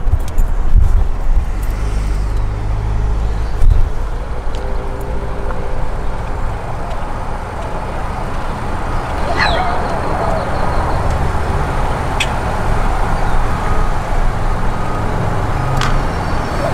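A car driving slowly along a street, heard from inside the cabin: a steady low rumble of engine and road noise, with a couple of sharp knocks in the first four seconds, the loudest about three and a half seconds in.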